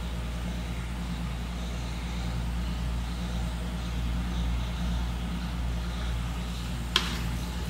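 Steady low machine hum with one sharp click near the end.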